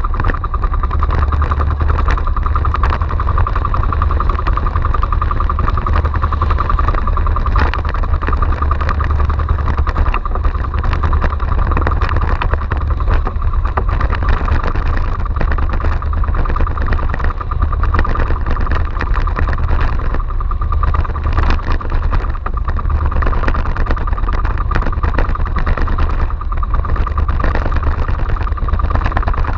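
Small outrigger fishing boat's engine running steadily under way, with a fast, even pulse, over the rush of wind and choppy water against the hull.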